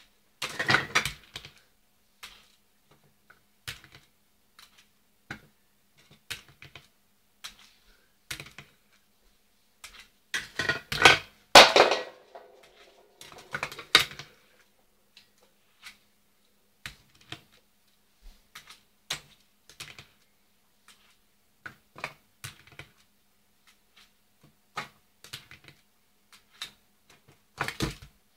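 Finger roller skates clicking and clattering on miniature wooden pallets and a wire-mesh basket: scattered light knocks, with louder bursts of clattering about a second in, around ten to twelve seconds in, and near the end. The loudest clatter, around twelve seconds in, trails off in a short rattle.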